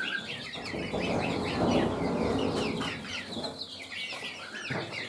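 Flock of young chickens cheeping with many short, rapid high calls, mixed with clucking. About one to three seconds in, a louder stretch of duller noise rises under the calls.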